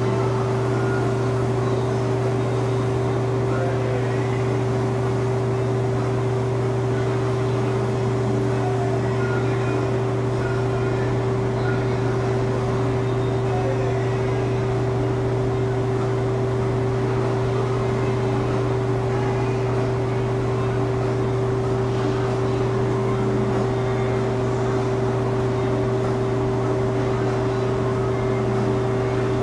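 Steady machine hum from spray-painting equipment: a low drone with a higher steady tone above it, unchanging throughout.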